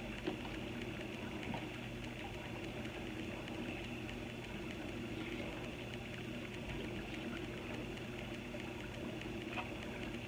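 Steady quiet background hum with an even hiss, and a faint tick near the end.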